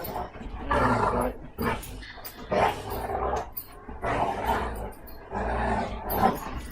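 Dogs growling in rough play-fighting: a run of short growls, about one a second.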